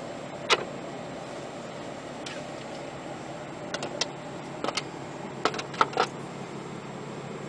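Steady hum inside a Ram pickup's cab, with a handful of sharp clicks and taps: one about half a second in, and a quick cluster between about four and six seconds in.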